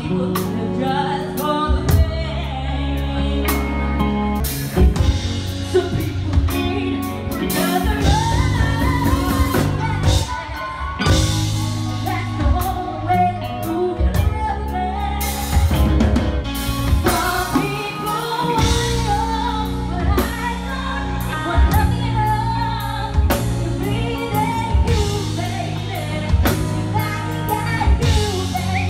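Live band playing: a woman singing into a microphone over electric guitar and a drum kit.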